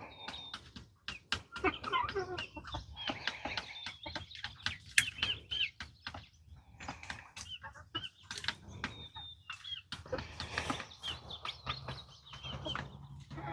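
Backyard hens clucking in short, scattered calls, with sharp clicks and taps among them.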